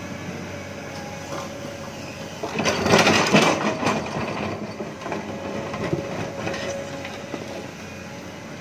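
Excavator engine running steadily; about two and a half seconds in, a bucketload of soil pours out with a loud rumbling crunch lasting about two seconds, then trails off into scattered rattles.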